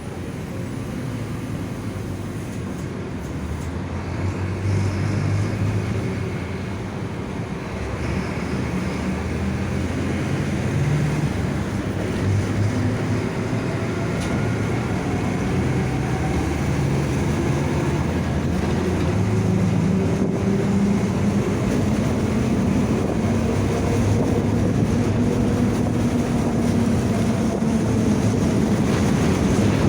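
Mercedes-Benz OF-1722M bus under way, its diesel engine revs rising and falling as it pulls through the gears. The differential growls, and the sound slowly gets louder over the stretch.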